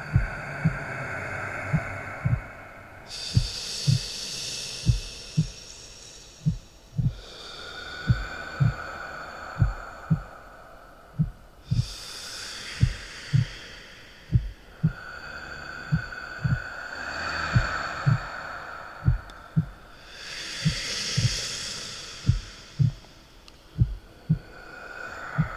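Heartbeat sound effect: low double thumps about once a second, kept steady throughout. Over it come slow swells of airy, hissing tones, each rising and fading over a few seconds.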